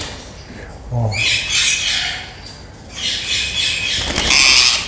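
Indian ringneck parakeet squawking in two spells, the second louder near the end, while fluttering in a wire cage: the alarm calls of a bird being cornered for capture.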